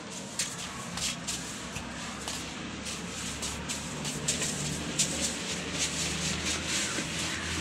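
Scuffing footsteps and the rustle of a hand-held phone being carried while walking, irregular clicks and scrapes over a steady low hum.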